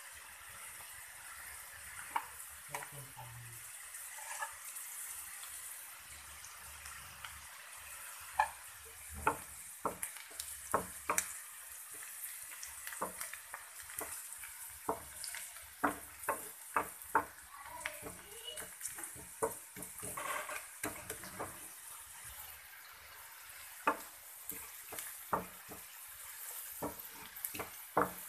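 Sliced onions frying in oil in a pan, sizzling with a steady hiss, while a wooden spatula stirs them, knocking and scraping against the pan many times.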